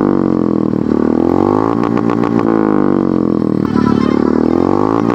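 Royal Enfield Hunter 350's single-cylinder engine through an aftermarket megaphone exhaust, revved while standing, its pitch swelling up and dropping back twice. The exhaust note is deep and bassy.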